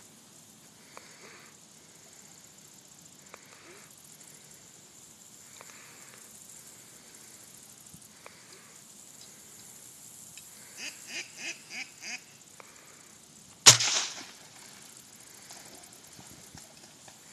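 A single distant gunshot, sharp and by far the loudest sound, with a brief echoing tail: gunfire used to introduce a young retriever to the sound of a shot. About two seconds before it comes a quick series of about five short calls.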